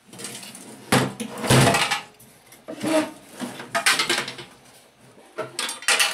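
Sheet-metal casing of a Sharp microwave oven being tipped and turned over on a tabletop: a run of clunks, bumps and scrapes, the loudest about a second in.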